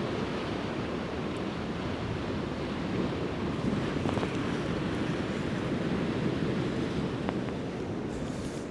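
Sea waves washing and splashing against coastal rocks on a flooding tide, a steady rushing wash, with wind buffeting the microphone.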